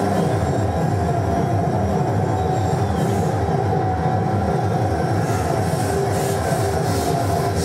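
Improvised experimental noise music played live: a dense, steady drone with a held mid-pitched tone and a second tone that comes and goes, over a fast, repeating low pulse.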